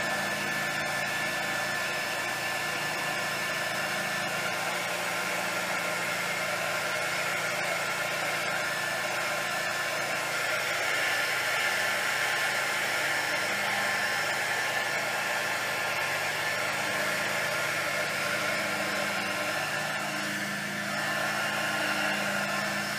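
Handheld craft heat gun running steadily, its fan blowing hot air across wet epoxy resin to push the white paint into wave patterns.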